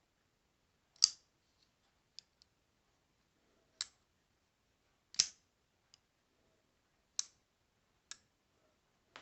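Sharp clicks from a Kizer Mini Sheepdog folding knife being handled as its blade is opened and closed. The clicks are spaced irregularly about a second apart, and the loudest come about a second in and just after five seconds.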